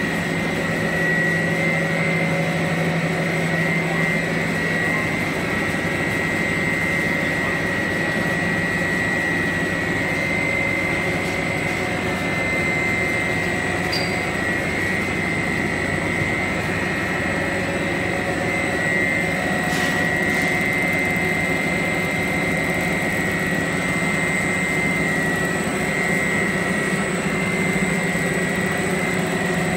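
SPJM 120/80 double-layer PP/PS sheet extrusion line running: a steady drone of motors and drives with a constant high-pitched whine over it.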